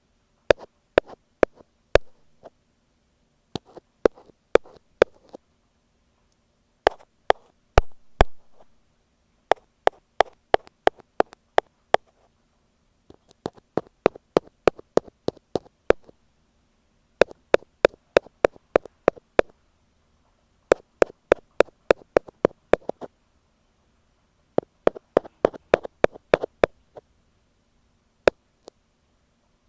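Ear pick tapping on an earphone microphone: sharp close-up taps in quick runs of several taps, about four or five a second, with short pauses between the runs. A faint steady hum runs underneath.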